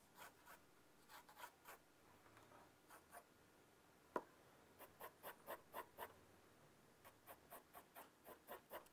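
Sketching pencil scratching on drawing paper in runs of quick short strokes, going over construction lines again and again to darken them. A single sharp click comes about four seconds in.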